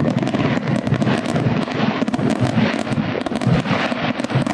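Aerial fireworks display: a dense, continuous crackling and popping of many bursts at once.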